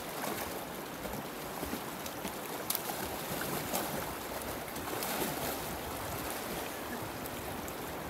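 Fast-flowing river water rushing steadily, with splashing and a few sharp slaps of water as a person wades through the current beside a swimming dog.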